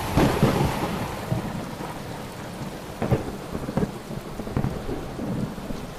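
Heavy rain falling in a thunderstorm, a steady hiss that is loudest at the very start, with a few sharp taps of drops about three to five seconds in.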